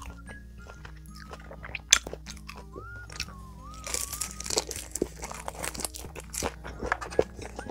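Close-miked eating: a spoonful of rice wrapped in seasoned laver (gim) is bitten with a crisp crunch about four seconds in, then chewed, with small clicks and one sharp click about two seconds in. Soft background music with held notes plays throughout.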